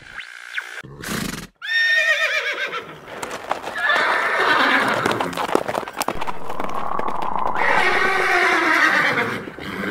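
Horse whinny sound effect, a wavering call that falls in pitch, followed by a stretch of hoofbeats, under an intro logo.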